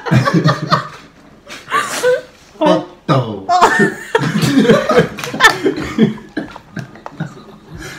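People laughing hard, a woman laughing in repeated bursts with a few stray spoken sounds mixed in.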